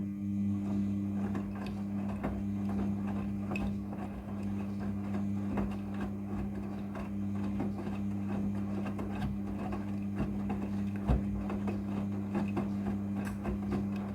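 Midea front-loading washing machine running: a steady electric hum that switches on suddenly, with many small irregular clicks and rattles over it.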